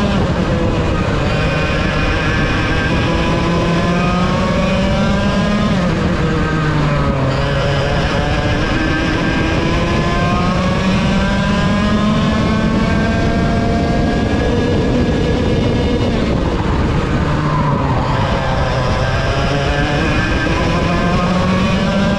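ROK VLR 100 two-stroke kart engine at racing speed, heard on board. Its pitch climbs steadily on the straights and drops twice, about six and seventeen seconds in, as the kart slows for corners, then climbs again.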